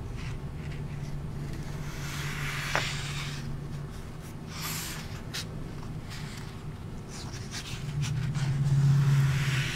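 Pages of a hand-bound sketch journal being turned by hand: paper rustling and sliding, with a few light clicks, over a low steady hum.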